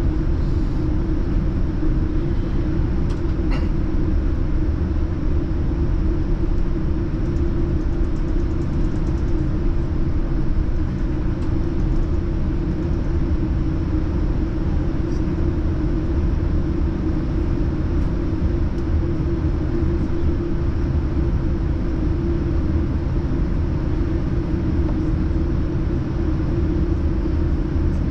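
Steady low rumble inside the cabin of a Boeing 787-9 taxiing to the runway, with its engines at low taxi power.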